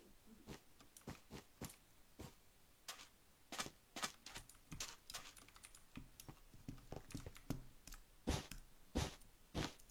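A series of irregular sharp clicks and taps, a few a second, with the loudest ones near the end.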